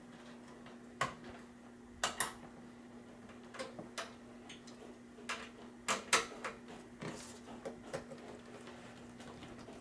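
Cable plugs clicking and knocking as they are pushed into the rear ports of a desktop PC tower: about a dozen scattered sharp clicks over a faint steady hum.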